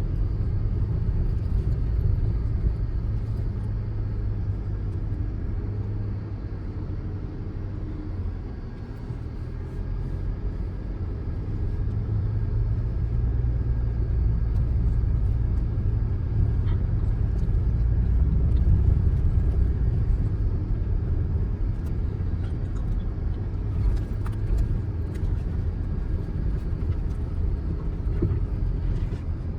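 Audi Q5 driving, a continuous low engine and road rumble that eases off around a quarter of the way in and builds again past the middle. A few short clicks come about four-fifths of the way through.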